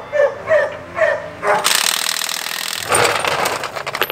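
A dog barking, about four short barks in quick succession. It is followed by a loud, harsh mechanical noise lasting about a second, then a shorter burst.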